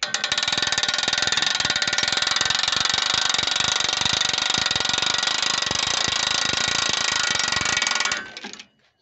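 Small hand-cranked cable winch being wound, its ratchet pawl clicking rapidly and evenly as the cable raises a tipping trailer box. The clicking runs loud and steady for about eight seconds, then stops.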